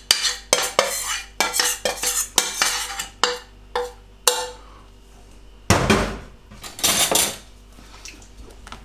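Metal spoon scraping melted white chocolate out of a stainless steel bowl into a saucepan, a quick run of scrapes and clicks against the metal. About three to four seconds in come three short taps with a ringing tone, then a quiet stretch and two louder clattering scrapes around six and seven seconds in.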